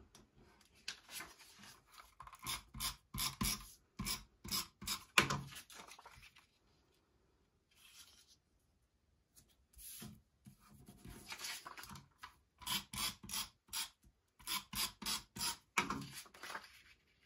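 Scrapbook paper strips being slid, lifted and pressed down onto cutting mats: rustling and scraping of paper with quick, sharp taps, coming in two flurries with a quiet stretch between them.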